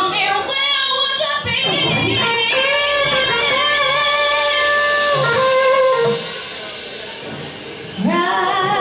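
Live rock band with a female lead singer holding long, wavering sung notes over electric guitars and drums. The sound drops quieter about six seconds in, and the singing comes back near the end.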